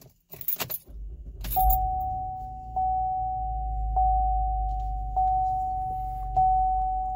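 2015 Chevrolet Impala engine starting about a second in, then idling with a low steady rumble. Over it, a dashboard warning chime bongs on one pitch about every 1.2 seconds, five times, and is the loudest sound.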